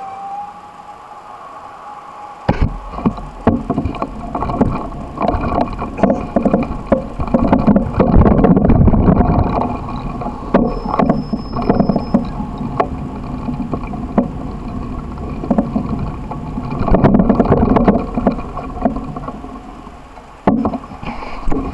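Wind rumble and rattling knocks picked up by a handlebar-mounted camera on a moving bicycle riding over pavement. It starts about two and a half seconds in, after a quieter stretch while the bike stands still.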